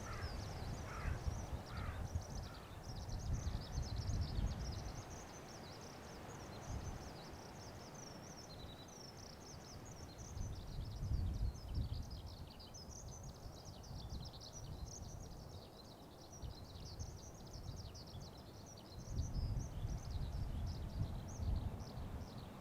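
Birds chirping in a dense, continuous high-pitched twitter, with a few lower falling calls in the first couple of seconds, over gusty low wind rumble on the microphone.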